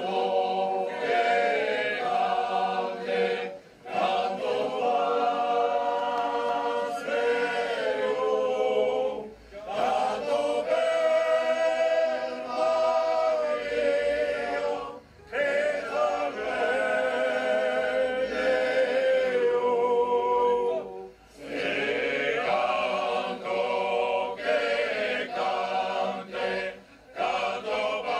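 Background music: a choir singing in long held phrases, with brief pauses between phrases about every five to six seconds.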